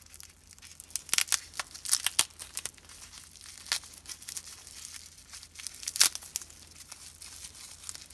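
Plastic wrapping and tape being pulled off by hand: irregular crinkling with sharp crackles, busiest a second or two in and again around six seconds in.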